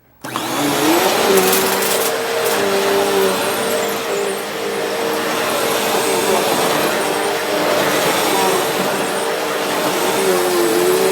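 Vacuum cleaner running on carpet: a dense, steady rush of air with a motor whine whose pitch wavers slightly. It cuts in suddenly a fraction of a second in.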